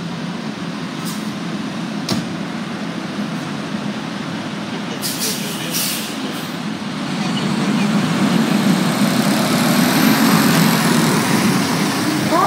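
Fire engine diesel engines running, growing louder from about halfway through as the engine pulls out of the bay, with a few short sharp hisses or clicks early on. A siren starts to wind up at the very end.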